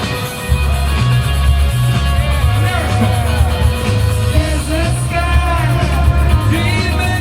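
Rock band playing live, heard through a smartphone recording: a heavy, boomy bass line under a singing voice.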